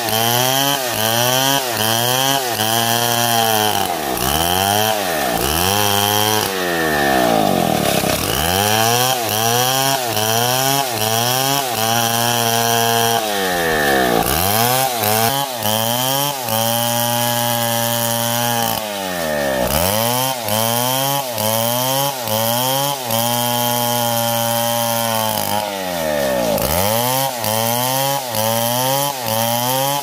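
Two-stroke gasoline chainsaw ripping a plank lengthwise along the grain. The engine pitch rises and falls over and over as the chain bites and frees, in quick surges during the first few seconds and longer swells after that.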